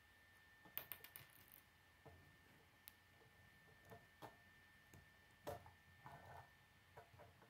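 Faint clicks and rattles of K'nex plastic rods and connectors being handled and snapped together by hand: scattered small clicks, bunched about a second in and again about five and a half seconds in. A faint steady high tone hums underneath.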